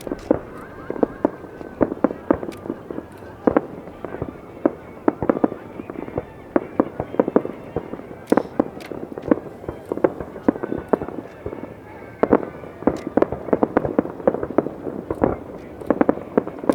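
Fireworks display: shells bursting in rapid, irregular succession, several sharp bangs a second, with no let-up.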